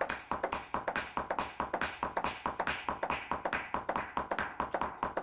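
Music software metronome ticking, with clap sounds being laid in over it: a quick run of sharp clicks, about five a second.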